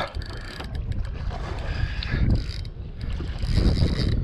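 Wind buffeting the microphone over water lapping against a canoe, with a few clicks from a Penn spinning reel as a hooked shark is fought.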